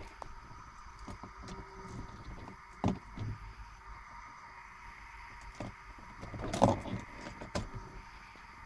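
Faint clicks and knocks of the ignition key and key ring being handled in a Mercedes W123's ignition lock, with the diesel engine not yet running. There are a few light knocks and one louder knock about two thirds of the way through.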